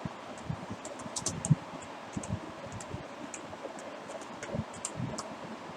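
Low background hiss broken by a few soft thumps and faint high clicks.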